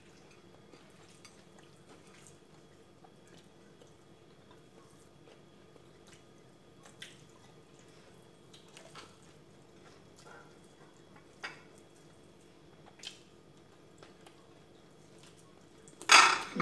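Faint eating sounds: scattered soft smacks and clicks of chewing and of fingers pulling apart fried chicken, over a steady low hum. A short loud burst near the end stands out above everything else.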